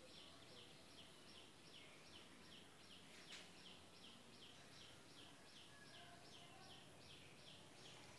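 Faint, regular high chirps, about three a second, each falling slightly in pitch, over a low background hiss, with one faint click about three seconds in.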